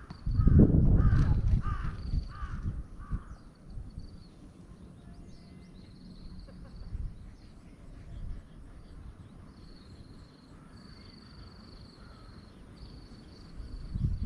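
A crow cawing about five times in a row, with low rumbling wind or handling noise under the first calls. After that, faint high thin trills from insects or birds come and go.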